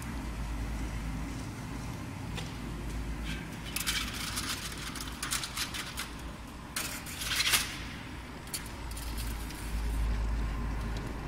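Compact metal-strip slitting machine running with a steady low hum. From about four seconds in to about nine seconds come several bursts of light metallic clinking and rattling, loudest about seven and a half seconds in.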